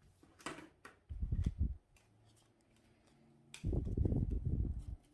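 Trading cards and plastic card sleeves being handled: a few sharp clicks, then two stretches of low, bumpy rumbling like hands and cards knocking on the table.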